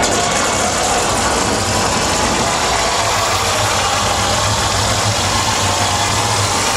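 Electronic dance music over a large festival sound system, recorded from within the crowd and heavily overloaded: a dense, steady hissing wash with a low bass that comes in about two and a half seconds in.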